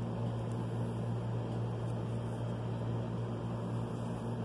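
Steady low background hum with an even hiss over it, with a few faint light scratches of a pencil on paper.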